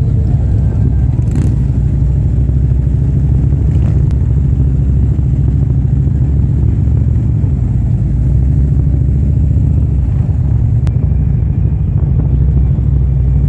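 Harley-Davidson touring motorcycle's V-twin engine rumbling steadily while cruising, with wind on the microphone and a second touring bike running alongside.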